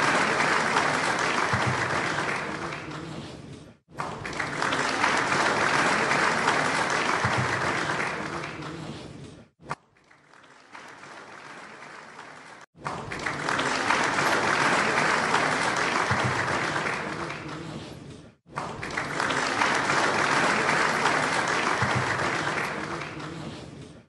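Audience applause: light, steady clapping from a crowd, heard as a series of separate takes that each fade away and then cut off abruptly, about every five to six seconds. There is a quieter stretch of about three seconds near the middle.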